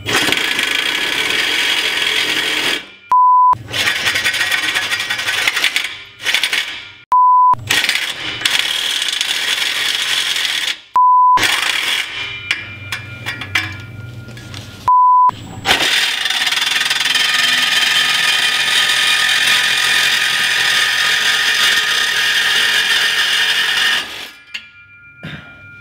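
Hacksaw cutting through a rusted steel exhaust pipe, a steady metallic rasp of saw strokes. Five short, loud single-pitch beeps break in about every four seconds during the first fifteen seconds; after that the sawing runs on unbroken until near the end.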